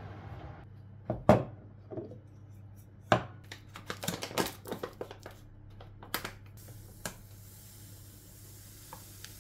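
A paper bag of sugar crinkling and being handled, with sharp knocks of bag and glass jar on the counter, the loudest about a second in. Near the end granulated sugar starts pouring into the glass jar with a soft hiss.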